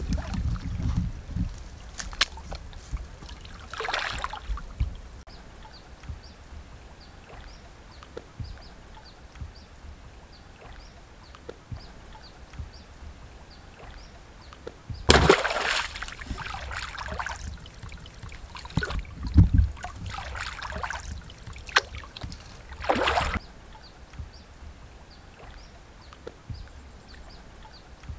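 Water sloshing and splashing as a person wades in shallow muddy water and spears a fish, with a loud splash about halfway through and two more a few seconds later.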